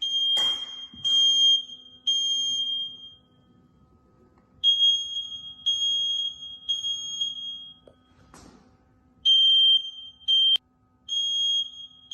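Photoelectric smoke detectors sounding their alarm: repeated high-pitched beeps about a second apart, some in runs of three with pauses between, set off by test smoke. Two short hissing noises come about half a second in and again near the middle.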